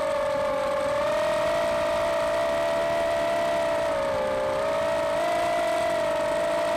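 Racing quadcopter's four Emax RS2205-2600kV brushless motors spinning 4-inch propellers, a steady high whine whose pitch wavers with the throttle and dips briefly about four seconds in.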